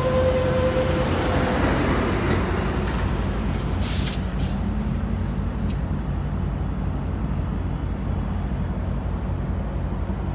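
Caltrans bilevel passenger train pulling out, its last cars rolling past and away with a steady low diesel hum. A ringing tone sounds in the first second or so, and short sharp hisses of air come about four seconds in and again shortly after.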